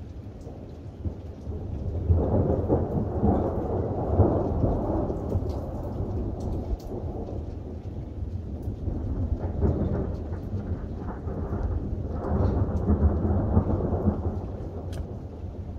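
Rolling thunder in two long, low rumbles, the first starting about two seconds in and the second about twelve seconds in, over steady rain. The near-continuous thunder is typical of a hailstorm.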